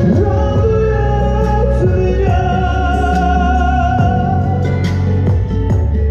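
A man singing into a handheld microphone over a backing track, holding one long note with vibrato about halfway through.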